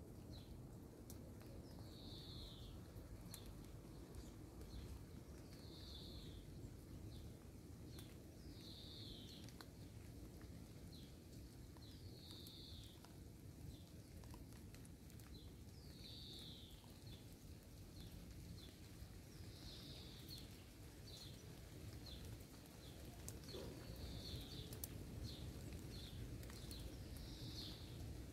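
Faint bird calling: a short falling high chirp about every three to four seconds, with softer quick ticks between, over a low background rumble.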